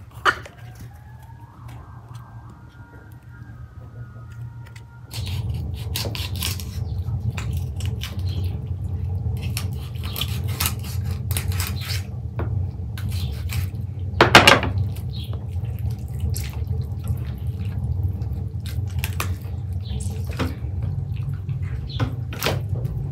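Large knife cutting raw whole chickens on a wooden cutting board: irregular sharp knocks and clicks of the blade through the carcass and against the board, with one loud knock about 14 seconds in, over a steady low hum. The first five seconds are quieter, with faint thin calls.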